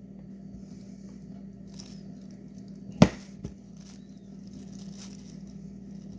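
Knife cutting a hard, Parmesan-like cheese on a cutting board: quiet scraping, with one sharp knock of the blade about three seconds in and a lighter one just after, over a steady low hum.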